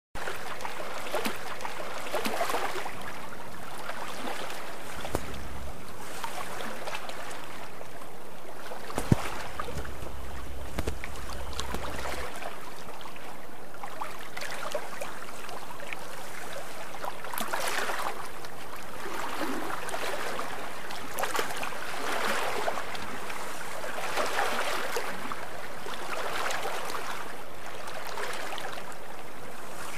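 Water rushing and splashing along a sailboat's hull while under sail, swelling and easing every second or two. A single sharp knock about nine seconds in.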